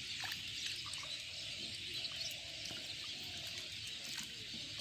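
Quiet rural outdoor ambience: faint bird calls over a steady high-pitched hiss.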